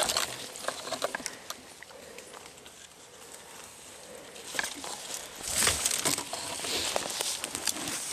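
Rustling and crackling in dry grass and brush, with scattered light clicks, swelling into two louder bursts about five and a half and six and a half seconds in.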